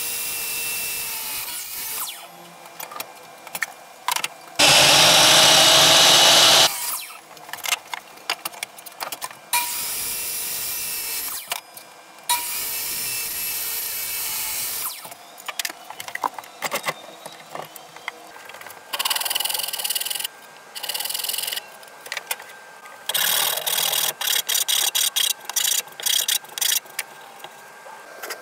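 DeWalt miter saw running in several separate runs while crosscutting cypress boards. The loudest moment is a full cut about five seconds in, lasting about two seconds. Near the end comes a longer stretch of rapid clicking and scraping.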